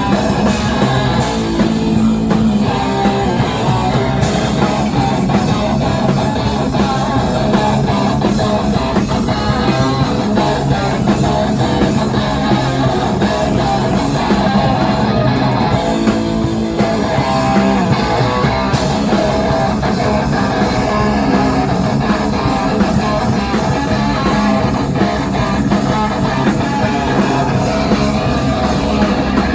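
A live rock band playing loud and dense, guitar over bass and drums, in a heavy punk and metal style.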